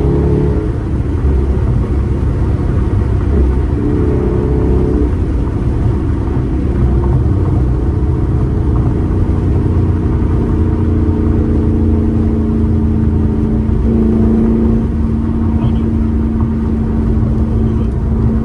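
A car's engine and exhaust running while driving, over a heavy low rumble of road and wind noise. The engine note shifts a few times, then settles into one steady drone for the last few seconds.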